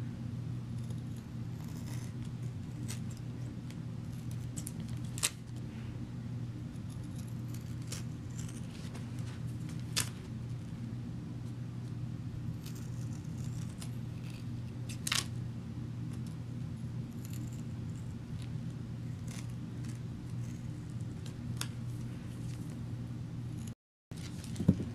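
Scissors cutting through thick layered duct tape: a handful of sharp snips spaced several seconds apart, over a steady low hum.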